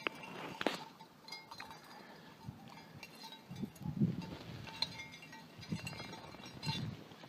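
Scotch Highland cow grazing in crusted snow: irregular crunching and small clicks as it digs down and tears up grass.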